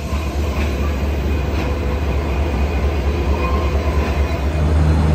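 A CFR diesel locomotive's engine running while it stands at the platform, a steady low rumble that grows slightly louder near the end.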